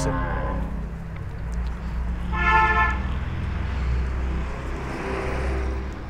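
A single short moo from cattle about two and a half seconds in, over a steady low rumble.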